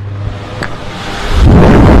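Air cooler fan running with a steady low hum, then about a second in its air blast hits the lapel microphone and turns into loud, continuous wind buffeting on the mic.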